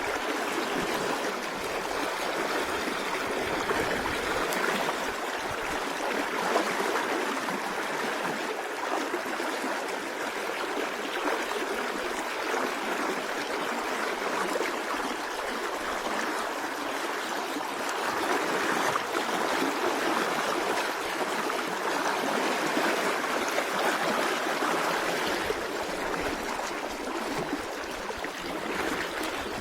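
Mountain river rushing steadily over rocks: a constant hiss of fast-flowing water.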